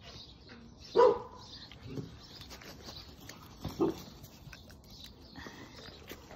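A dog barks twice, one short woof about a second in and another just before the four-second mark.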